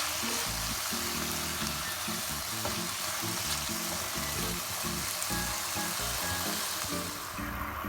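Food sizzling and frying in a hot pan, with stirring; the sizzle drops away near the end.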